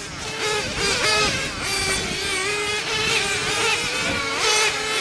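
Small nitro glow engines of radio-controlled racing cars running at high revs, their whine rising and falling as the cars accelerate and back off, with one engine holding a steady pitch under the others.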